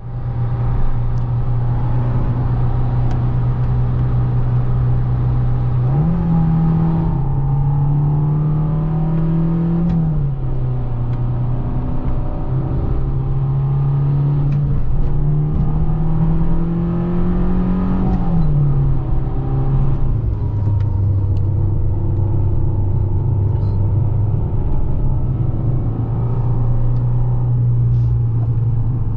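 Fiat 500 1.4 four-cylinder petrol engine heard from inside the cabin while driving, over steady road and tyre rumble. Its note rises about six seconds in, drops around ten seconds, climbs again from about fifteen to eighteen seconds, and settles lower after twenty seconds as the car accelerates and eases off.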